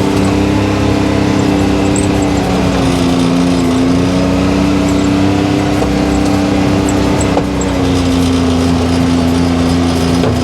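Off-road vehicle engine running at a steady speed while riding, its pitch dipping slightly a couple of times.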